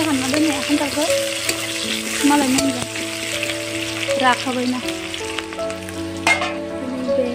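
Sliced vegetables sizzling in hot oil in a metal kadai over a wood fire, stirred with a metal spatula that scrapes and clicks against the pan now and then.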